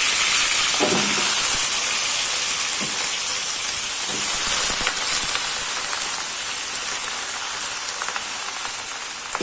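Hot oil sizzling steadily in a wok as freshly washed cabbage sprouts go into it on top of sautéed garlic paste. The hiss eases off slightly over the seconds.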